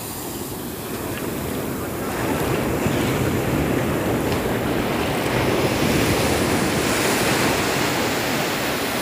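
Sea surf breaking and washing in over the shallows of a beach as a steady rush of foaming water, growing louder about two seconds in.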